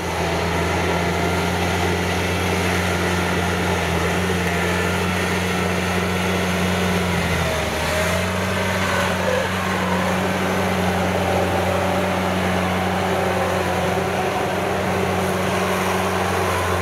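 Engine of a tracked rotary tiller running steadily under load while its rotor churns through a flooded rice paddy, with a brief dip in the engine note about halfway through.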